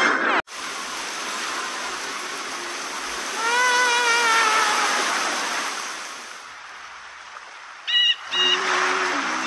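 A music sting cuts off half a second in, giving way to a steady hiss of cartoon rain. About three and a half seconds in, a wavering whistle-like tone rises and falls for about a second and a half. Near the end the rain fades, two quick high chime-like notes sound and light music starts.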